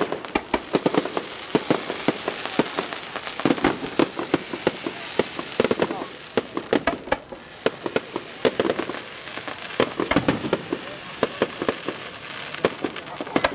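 Aerial fireworks going off in a dense, irregular run of sharp bangs and crackles, several reports a second.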